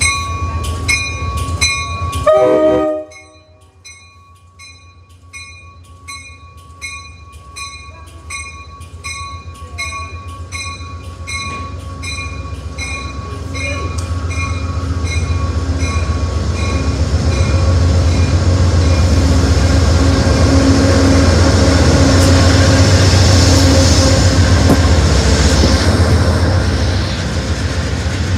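Amtrak Valley Flyer train passing along the platform. The cab car's horn sounds for about two and a half seconds while its bell rings, and the bell keeps ringing more faintly for several seconds after. Then the rear GE P42DC diesel locomotive's engine grows loud as it goes by, peaking near the end.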